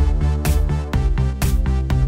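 Electronic background music with a steady beat and a sustained bass line.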